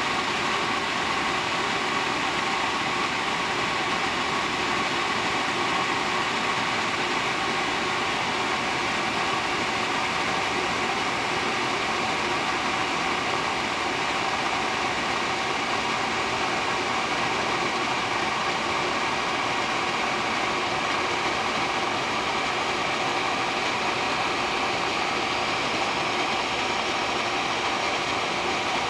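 Power Flame commercial oil burner running steadily with its newly replaced blower motor: an even, unbroken machine noise with a few steady tones through it.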